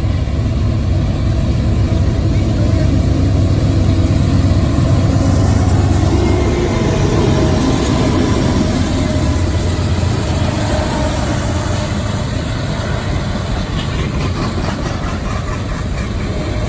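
A BNSF freight train's diesel locomotives passing close by with a steady low engine drone, loudest about five or six seconds in as they go past, giving way to the rumble of freight cars rolling by on the rails.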